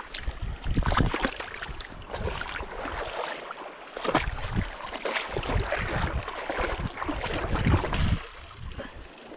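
Shallow water splashing and sloshing in irregular bursts, loudest about a second in and again near the end.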